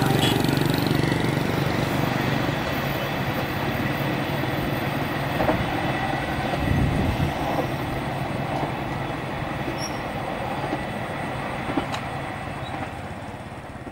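Passenger train running on the rails, a steady noise of wheels and carriages that slowly fades as it moves away.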